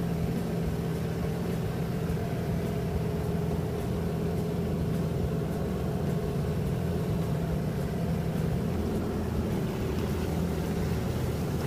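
Fishing boat's engine running steadily at an even pitch, with propeller wash churning the water.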